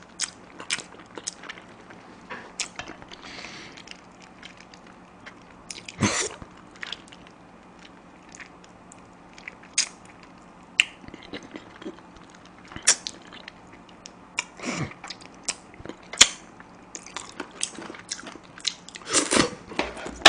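Close-up eating sounds of a person gnawing and sucking spicy chicken feet, working the meat off the small bones in his mouth: many sharp wet clicks and smacks, with a few longer louder sucking sounds about six seconds in, around fifteen seconds and near the end.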